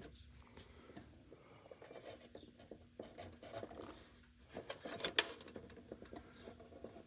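Faint scratching and rubbing with scattered small clicks, a louder cluster of them about five seconds in, over a faint steady hum.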